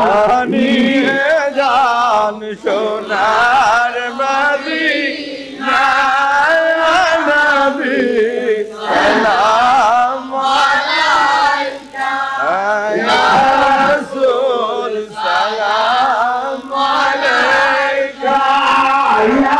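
A man singing a Bengali devotional zikir into a handheld microphone, in long phrases that waver and bend in pitch with short breaks between them.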